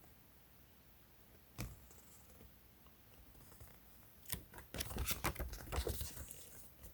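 A paper manual and its packaging being handled: a single tap about a second and a half in, then a burst of paper rustling and small clicks in the last few seconds.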